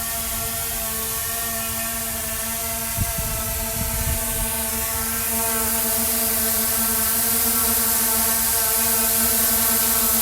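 Steady whine of small electric motors, with a high hiss above it and a few low thumps about three and four seconds in; it gets a little louder about five seconds in.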